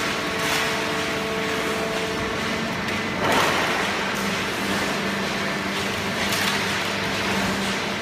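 Horizontal hydraulic paper baler and its feed conveyor running with a steady machine hum, a lower hum tone coming in a couple of seconds in. A rustling swoosh of paper scraps being tipped onto the conveyor comes about every three seconds.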